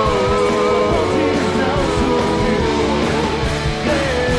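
Rock song performed live: a drum kit and band backing a group of male singers, who hold a long drawn-out 'yeah' over most of it before a new sung phrase begins near the end.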